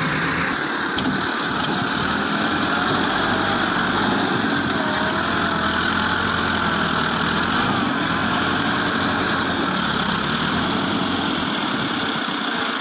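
Heavy machine's diesel engine running steadily at idle, with no clear revving.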